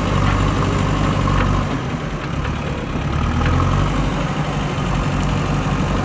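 JCB 3DX backhoe loader's diesel engine running steadily as the machine works its front bucket, easing off for a moment about two seconds in and then picking up again.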